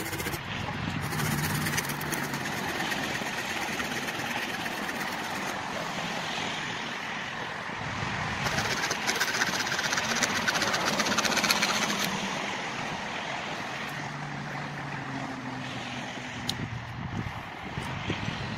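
Multitool knife blade shaving a stick of ash wood, a rasping scrape that is loudest about halfway through, over a steady outdoor rush with a faint low hum now and then.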